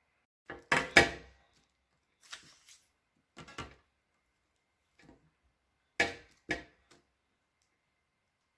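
A few short knocks and clatters of things being handled and set down on a hard surface, the loudest about a second in and another pair about six seconds in.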